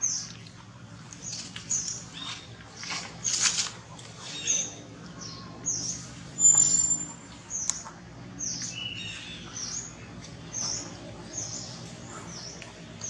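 Baby long-tailed macaque squeaking over and over: short, high-pitched squeaks about one to two a second, many falling in pitch, with one longer whistling squeak about halfway through.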